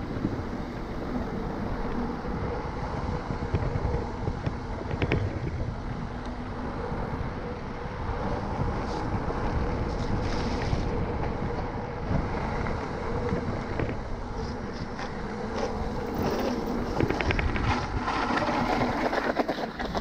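Wind rushing over an action camera's microphone and mountain-bike tyres rumbling over a concrete paver path, with scattered clicks and rattles from the bike, more of them near the end.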